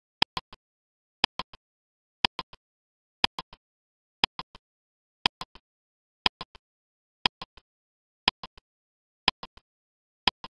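Ticking clock sound effect marking a quiz countdown timer: one tick a second, each a sharp click followed quickly by two fainter ones.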